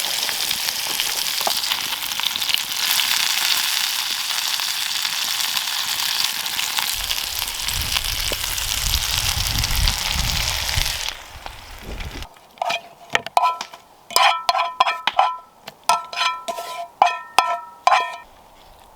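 Trout frying in a pan, a steady sizzle that stops after about eleven seconds. Then a quick run of short pitched notes.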